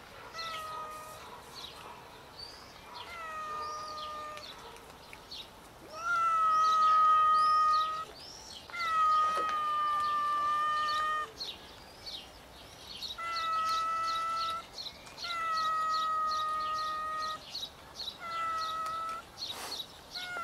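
Stray cats meowing over and over: a series of long, level-pitched meows, one every second or two, the loudest about six seconds in.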